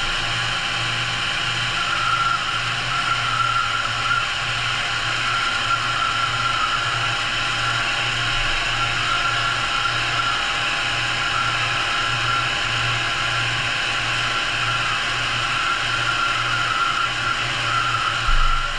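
Studer S33 CNC cylindrical grinder's wheel grinding the face of a gear under flood coolant: a steady whirring hiss over a low hum that pulses evenly as the gear turns. A short low thump near the end.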